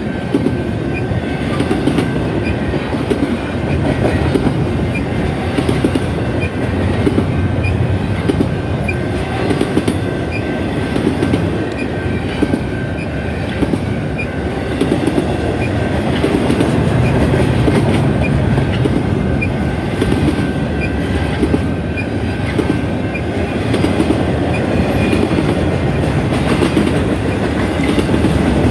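Double-stack intermodal train of container well cars rolling past: a steady loud rumble of steel wheels on rail with rhythmic clickety-clack, and a faint thin high tone of wheel squeal above it.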